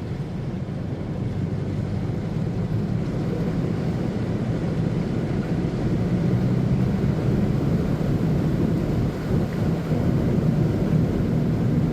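Car driving slowly through shallow floodwater a couple of inches deep: a steady low rumble of engine and water washing against the tyres and underbody, growing gradually louder.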